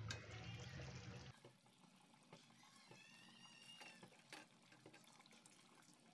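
A wooden spatula stirring chunks of beef through thick gravy in a steel pot: faint wet squelching with small clicks of the spatula against the pot. A low hum stops about a second in.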